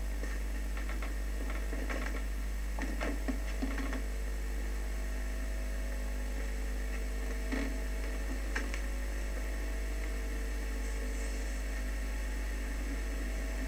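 Steady electrical mains hum with a faint hiss underneath, broken only by a few faint soft clicks about three seconds in and again around eight seconds.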